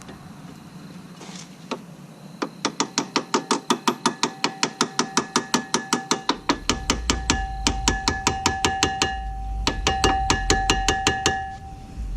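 Rapid, light hammer taps on a steel brake pad retaining pin, about five strikes a second, the metal ringing after each, with a brief pause partway through as the spring-loaded pin is driven through the caliper and pads.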